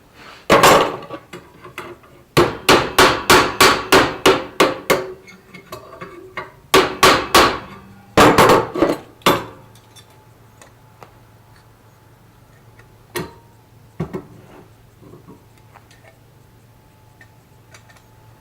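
Hand hammer striking steel stock: a single blow, then quick runs of strikes about three a second with short pauses between the runs, followed by two lighter knocks.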